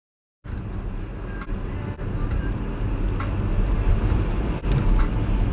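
Steady low rumble of engine and road noise from a car driving on an expressway, recorded by a dashcam inside the cabin. It starts after about half a second of silence, with a few faint ticks.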